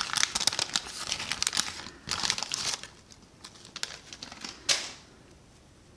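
Wax-paper wrapper of a 1985 Topps baseball card pack crinkling and tearing as it is peeled off the cards by hand. It is dense for the first few seconds, then comes as a few sparser crinkles with one sharp crackle near the end.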